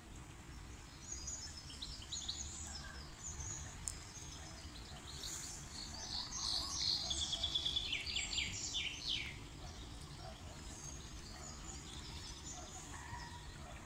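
Small songbirds chirping and singing, with a busy stretch of rapid trills, the loudest part, from about six to nine seconds in. Underneath runs a steady low rumble of outdoor background noise.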